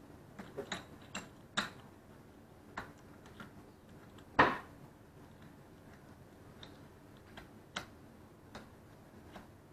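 Irregular metallic clicks and taps of a one-piece scope mount being handled and test-fitted on an air rifle's mounting rail, with one louder knock about four and a half seconds in.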